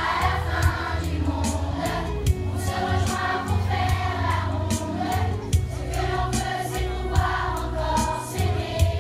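A large group of children singing together in unison over a recorded backing track with a bass line and a steady beat.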